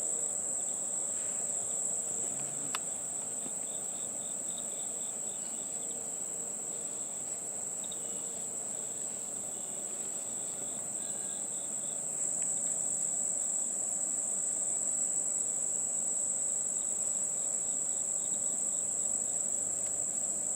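Honeybees buzzing around an opened hive, with a steady, high-pitched insect trill over the top that gets a little louder about halfway through. There is a single small click about three seconds in.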